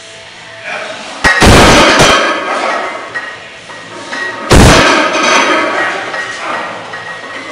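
Iron gym weights clanging: two loud metallic crashes that ring on, about a second in and again about three seconds later.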